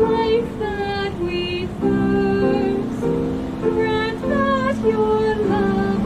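A hymn: a woman's voice singing held notes with vibrato over sustained accompanying chords.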